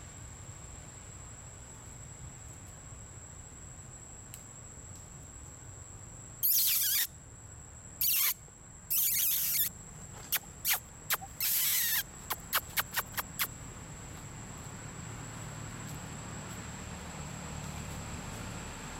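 A series of shrill, noisy animal squeals partway through. Four longer ones come first, then short sharp chirps, ending in a quick run of about eight.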